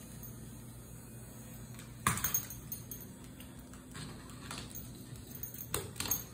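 A dog's metal collar tag jingling and clinking in short bursts as the dog moves, loudest about two seconds in and again near the end. A faint steady low hum lies underneath.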